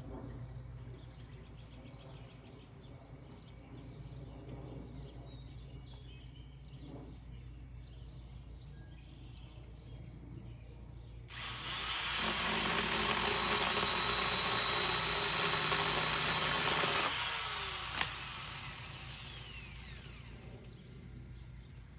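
Electric saw started about eleven seconds in and run steadily for about six seconds with a high whine, then released. A sharp crack comes just after, and the whine falls in pitch as the motor spins down.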